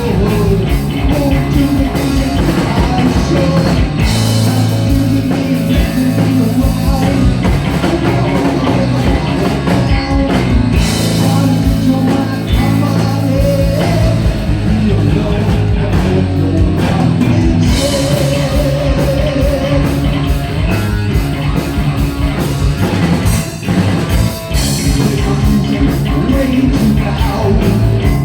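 Heavy metal band playing live at full volume: distorted electric guitar, bass and a driving drum kit with cymbals, with a brief break about 23 seconds in.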